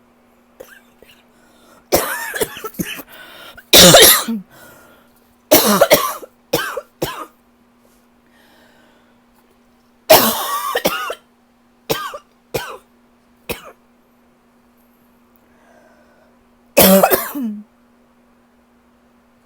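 A person coughing in repeated fits: a run of hacking coughs about two seconds in, a loud one soon after, further clusters around six and ten to thirteen seconds, and a last fit near the end. It is a lingering cough they can't shake off.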